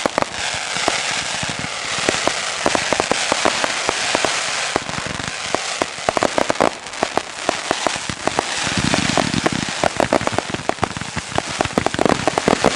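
Fireworks crackling: a dense hiss of crackle packed with many sharp pops, with a low rumble joining about nine seconds in.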